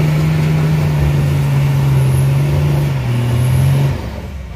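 Hino truck's diesel engine running hard at a steady pitch as the loaded truck pulls up a steep dirt climb. The engine sound falls away sharply about four seconds in.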